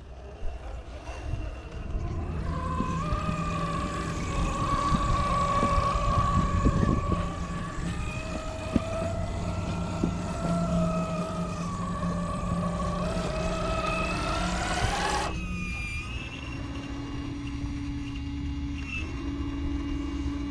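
Electric motor and gearbox whine of a radio-controlled scale crawler truck, its pitch rising and falling with the throttle as it climbs. About 15 seconds in it cuts off suddenly and gives way to a lower, steadier motor whine.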